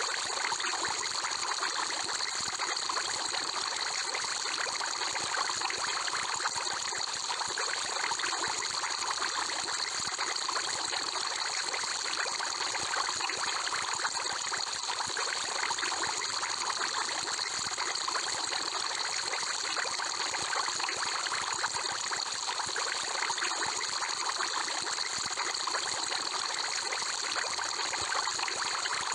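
Aquarium water bubbling and trickling steadily, a dense unchanging wash with fine crackling of bubbles.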